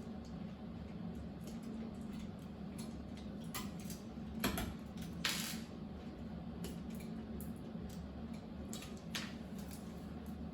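Scattered light clicks, taps and a brief scrape from small computer parts and a screwdriver being handled during desktop PC assembly, over a low steady hum; the sharpest knocks come about halfway through.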